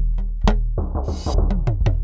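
Background music with a steady, quick beat over a constant deep bass.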